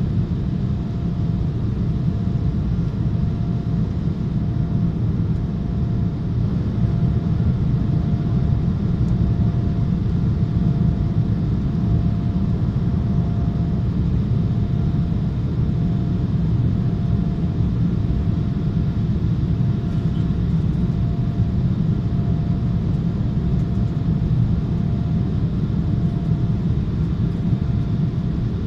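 Jet airliner cabin noise in flight, heard at a window seat over the wing: a steady low rumble of engines and airflow, with a faint thin whine above it.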